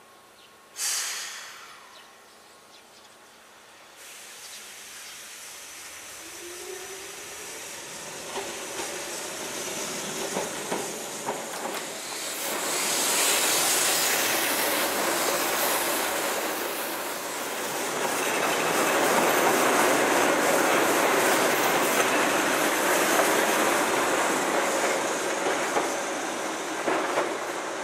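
Keihan 700-series two-car electric train approaching on street-running track and passing close by, its motors giving a rising whine as it nears, with wheel and running noise that swells to a loud, steady rush. About a second in, a short sharp sound drops quickly in pitch and fades.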